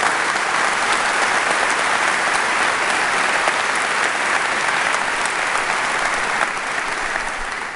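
Audience applauding, a steady even clapping that dies down near the end.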